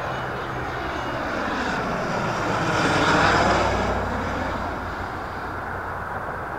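Fixed-wing aircraft on its landing approach passing overhead: its engine noise swells to a peak about three seconds in and then fades, with a sweeping, phasing quality as it goes by.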